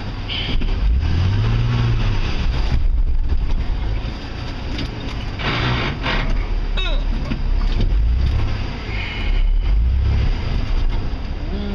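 A 4x4's engine revving and labouring in surges as it drives through a rough, muddy off-road track, with a brief rush of noise a little past the middle.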